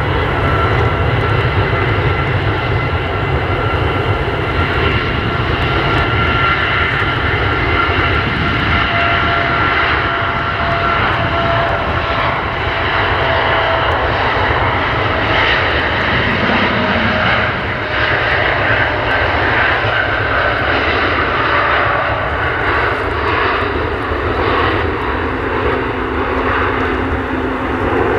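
Boeing 787-9 Dreamliner's jet engines at takeoff thrust as the airliner rolls down the runway and lifts off. It is a steady, loud engine noise with whining tones that slowly fall in pitch as the aircraft passes.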